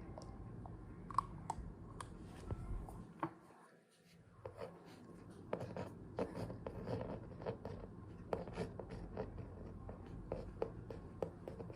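Writing on paper: short scratching strokes, sparse at first, then coming thick and fast after a brief quiet gap about four seconds in.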